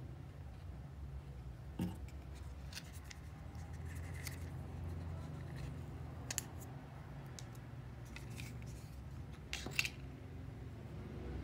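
Small plastic clicks and taps from handling an Apple Pencil and its plastic blister card of replacement tips: one about two seconds in, another midway, and a sharper cluster near the end, over a low steady hum.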